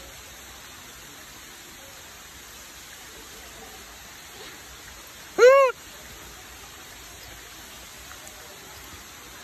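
A macaque gives a single short coo call, about a third of a second long, that rises and falls in pitch, over a steady background hiss.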